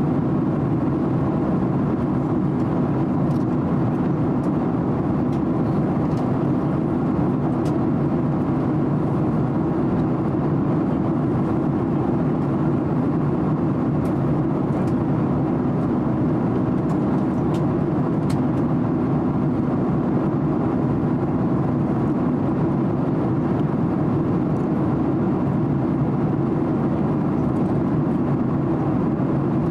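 Steady cabin noise of a Boeing 767-300 in cruise flight: an even, low rush of turbofan engines and airflow past the fuselage, with a few faint clicks.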